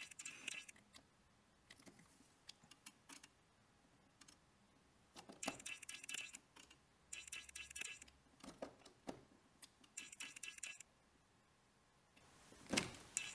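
Faint clicking and scraping of an installation tester's hand-held test probe pressed against the metal screw terminals of terminal blocks, in short clusters, with a louder scrape near the end.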